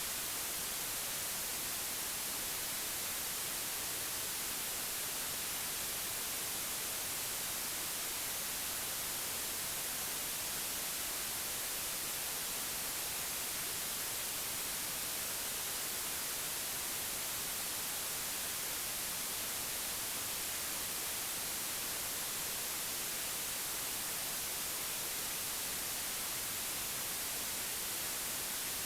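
Steady white noise: an even, unchanging hiss that is brightest in the high treble.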